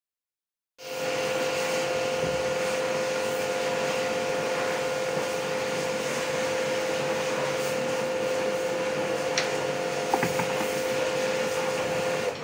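Steady machine hum with a constant whine held at one pitch, like a running electric blower motor. It starts suddenly just under a second in and drops off abruptly near the end. A few light clicks sound about three quarters of the way through.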